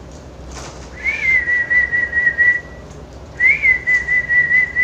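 Two warbling whistles, each a short rising note that settles into a wavering held tone about a second and a half long, the second starting about a second after the first ends. A brief soft rustle comes just before the first whistle.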